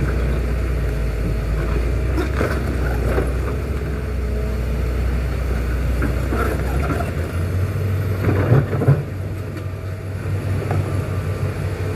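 Heavy diesel engine running steadily under load, its deep drone shifting to a higher note about seven seconds in, with a couple of loud clunks shortly after.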